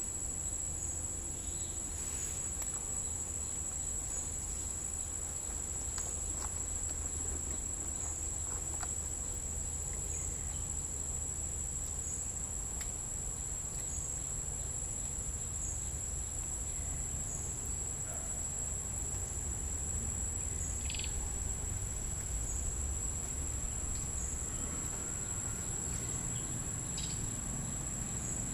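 Insects droning in one steady, high-pitched whine that dips briefly about every two seconds, over a low rumble.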